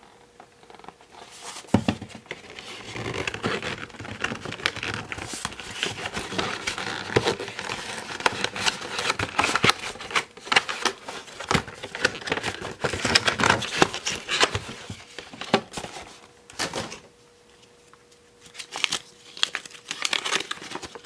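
Cardboard toy-box packaging and paper being handled: dense rustling and crinkling with many small clicks, a short pause, then more rustling near the end as a folded paper leaflet is unfolded.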